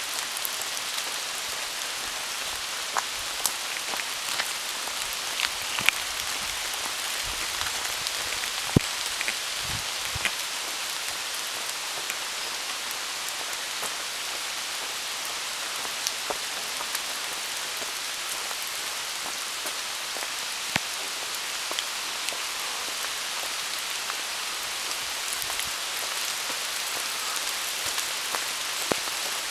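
Steady rain falling in rainforest, an even hiss dotted with scattered louder drops and drips.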